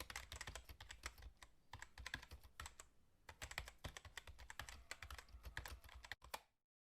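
Faint, fast typing on a computer keyboard: many quick, uneven key clicks that stop shortly before the end.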